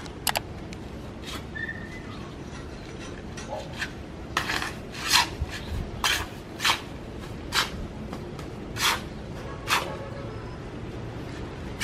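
Masons' steel trowels clinking and scraping against concrete hollow blocks and mortar, in sharp irregular strokes about once a second over a steady low background noise.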